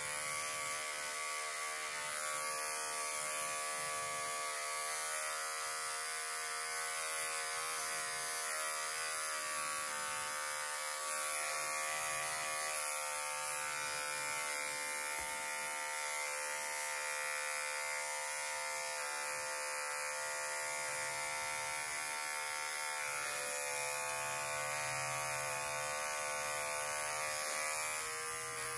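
Handheld electric dog clipper running steadily with a constant buzz as it is worked through a terrier's coat on the underside of the body. The pitch dips slightly twice.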